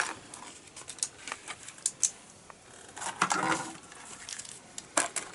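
Loose plastic Lego bricks clicking and rattling as hands sort through pieces, with a denser burst of rattling about three seconds in and a sharp click near the end.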